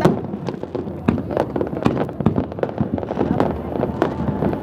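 Fireworks going off: a rapid, irregular run of bangs and crackles, with a sharp bang right at the start, over a constant low rumble.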